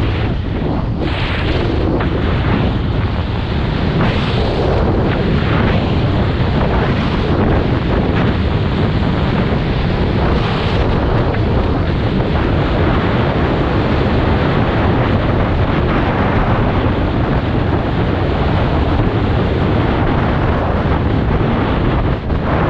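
Strong wind buffeting the camera's microphone during a fast downhill run over snow: a loud, steady rumble and hiss with a few faint knocks.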